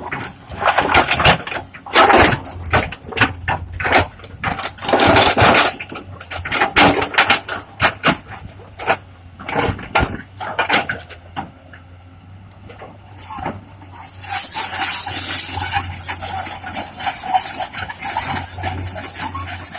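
Rock-breaking work: irregular knocks and clattering over a steady low engine hum, then about 14 seconds in a steady high-pitched hiss with squealing tones joins.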